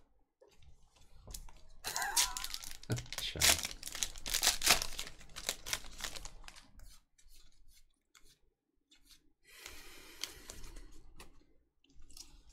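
Foil wrapper of a Topps WWE trading-card pack being torn open and crinkled: a few seconds of ripping and crackling, then a pause and a softer rustle near the end.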